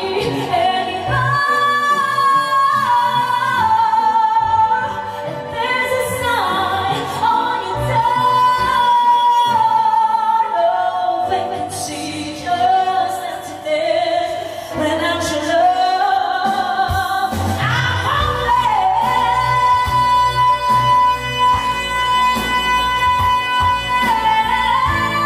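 A woman singing a slow ballad through a karaoke microphone over a backing track, sliding between held notes and then holding one long note for the last several seconds as a low beat comes in underneath.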